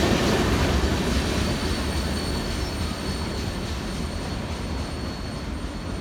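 Canadian National train's cars rolling past and fading away. Its steady rumble of wheels on rail dies down, and a thin, high wheel squeal comes in about a second and a half in.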